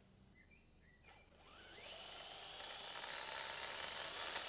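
Brushless electric motor of a 3S RC car spinning its wheels on a roller dyno: near quiet at first, then from about a second and a half in a rising whine as the motor speeds up, settling into a steady high whine with rolling noise from the wheels and rollers.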